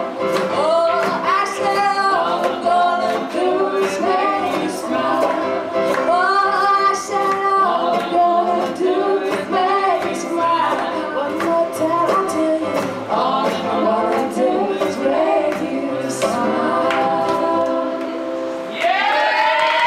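Live acoustic folk string band playing with several women singing in harmony, over a steady strummed beat. Near the end the voices rise to a louder, higher held note as the song closes.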